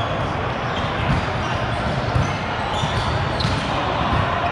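Volleyball play: a few sharp ball strikes and bounces over a steady, dense background din.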